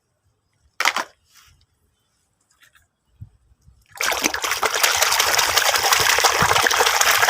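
A brief splash and a few small knocks, then, about four seconds in, water running steadily over a plastic toy as it is rinsed clean.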